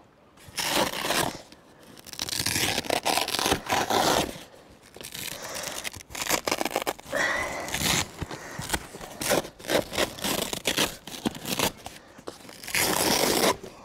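Padded hook-and-loop dividers being pulled out of a rolling camera case: repeated ripping of Velcro and scraping of padding, in several bursts of a second or two each.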